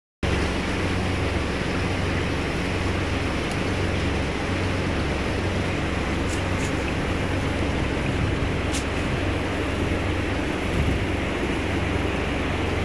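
Steady low hum with a constant hiss of bubbling air from an aquarium's air pump and airstones, with a few faint clicks.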